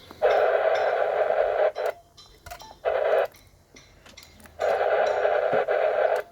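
Three bursts of static hiss from a ham radio transceiver's speaker, cutting in and out: a long one at the start, a short one about three seconds in, and another long one near the end.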